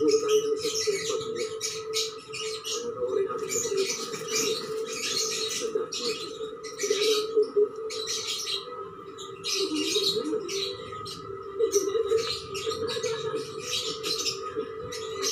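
Hands working dry potting mix of cocopeat, garden soil and rice hull in a plastic tray: repeated gritty rustling and scratching. Birds call and chirp in the background.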